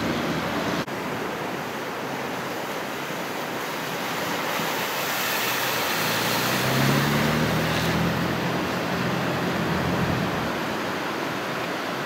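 Surf washing ashore with a steady rush of water and wind. From about six seconds in, the engine of a four-wheel-drive Jeep driving through shallow creek water joins it for a few seconds, then fades.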